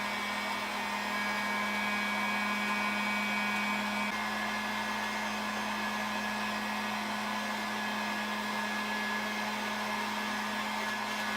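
Heat gun running steadily on its lowest setting, a steady blowing hum, heating a rigid watercooling tube to soften it for bending. A faint higher whine in it stops about four seconds in.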